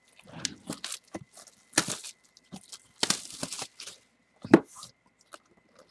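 Cardboard jersey box being torn open and handled: scattered tearing and scraping rushes of noise with small clicks, and a sharp knock about four and a half seconds in.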